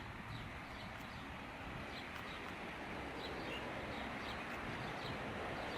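Small birds chirping: many short, high chirps that each slide down in pitch, several a second, over a steady outdoor background noise.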